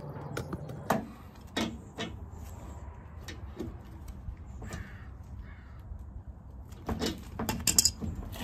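Length of black iron gas pipe being handled into place, knocking and scraping; scattered sharp knocks, with the loudest cluster near the end.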